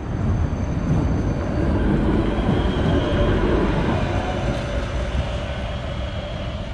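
A tram passing along the street: a rumble of wheels and running gear that swells in the first second or so, holds, then slowly dies away.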